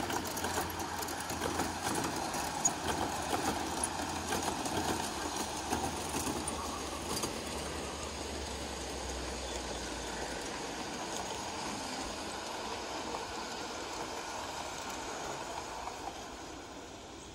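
Model trains running on the layout's tracks: a steady rolling rumble with scattered light clicks, easing off and fading near the end.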